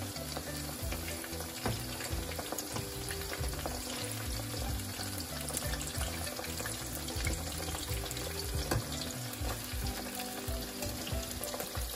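Marinated chicken strips deep-frying in hot oil in a wok, with a steady sizzle full of small crackles.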